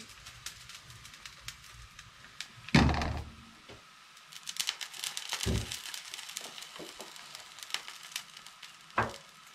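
Gaygana batter crackling and sizzling in a non-stick frying pan on a gas burner. About three seconds in there is a loud knock as the pan is set down on the iron grate, and a few duller knocks follow as more batter is ladled in.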